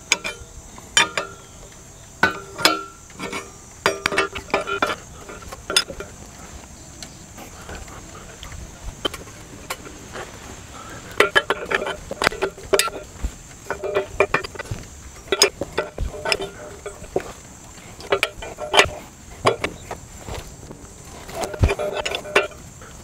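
A 1-1/8 inch wrench turning the threaded rod of a seal-installer tool, pressing a new inner axle seal into a Dana 60 axle tube: irregular metal clicks and clinks.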